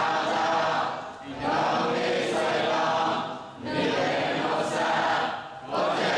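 Many voices of a seated congregation chanting together in unison, a Buddhist devotional recitation, in phrases of about two seconds with short breaks between them.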